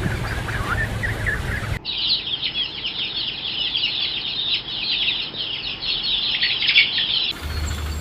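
Many small birds chirping in a dense, continuous chatter of rapid high cheeps. It starts abruptly about two seconds in and cuts off near the end.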